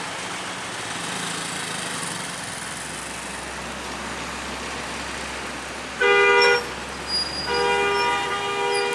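Bus telolet horn, a Basuri-type multi-tone air horn, over steady road traffic noise: a short loud blast about six seconds in, then a longer blast near the end.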